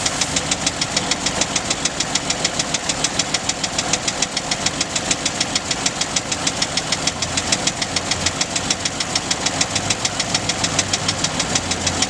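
1925 REO Roadster's six-cylinder engine idling steadily, with a fast, even beat of exhaust pulses.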